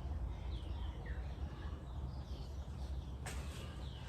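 Birds chirping in the background: short falling notes repeated roughly every half second, over a low steady rumble. A brief rustle of noise comes in near the end.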